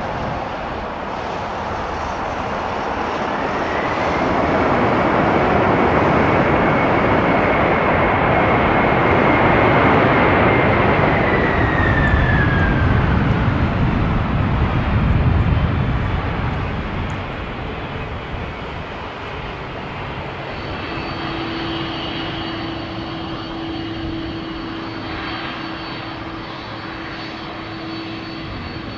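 Jet airliner passing low overhead on landing approach: a swelling roar with a high engine whine that drops in pitch as it goes by, followed by a deep rumble that fades away.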